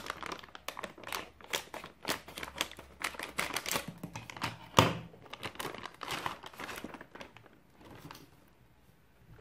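Anti-static shielding bag crinkling and crackling as hands open it and pull a device out, with one louder crackle about halfway through; the rustle dies down near the end.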